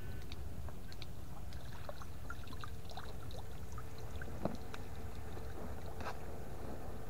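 Water sloshing and dripping as a stunned fish is scooped out with a hand net, with small ticks and one sharp knock about four and a half seconds in, over a steady low rumble. A faint steady tone comes in a few seconds in.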